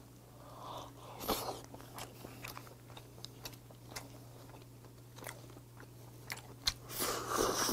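Steamed red snow crab shell being cracked and picked apart by hand: scattered sharp cracks and crunches, busiest near the end, over a faint steady hum.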